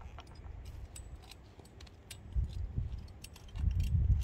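Welded wire fencing clicking and rattling as it is handled and pulled up against a steel T-post, a string of short metallic ticks. Low rumbles of wind on the microphone come midway and near the end.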